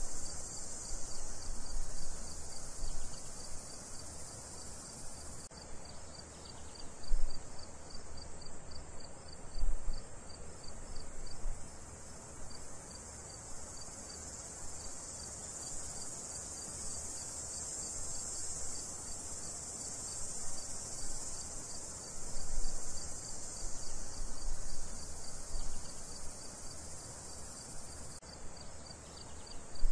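Crickets chirping in a steady chorus, with an even pulsing trill and a few low thumps.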